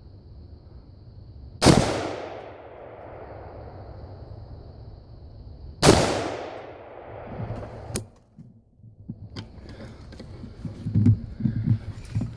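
Two rifle shots from an AR-15 in .223, about four seconds apart, each ringing out with a long echo that fades over a second or more. A sharp click follows, then scattered light knocks and rustling of movement through leaf litter.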